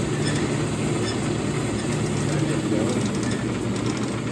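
Wilton 7020 horizontal bandsaw running, its variable-speed blade drive making a steady mechanical hum.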